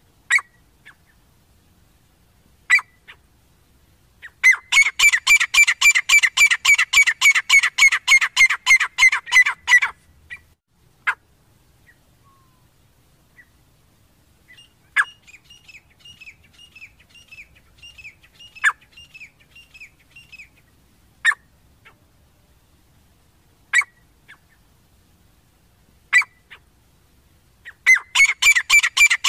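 Grey francolins calling loudly: about four seconds in, a fast run of repeated notes, about five a second, lasts some six seconds, and another run starts near the end. Between the runs come single sharp notes every couple of seconds and a softer, quicker chatter in the middle.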